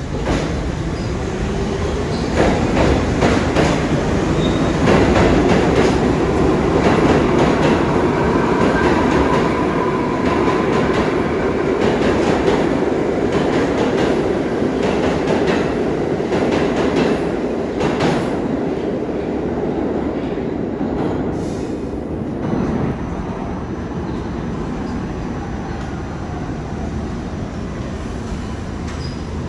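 New York City subway train passing through the station at speed. Steel wheels clack over the rail joints, and there is a faint wheel squeal; the noise builds over the first few seconds and slowly dies away.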